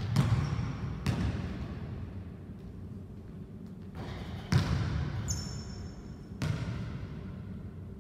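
A basketball bouncing on a hardwood gym floor: four separate thuds, each with a hall-like echo, two near the start and two more about four and a half and six and a half seconds in.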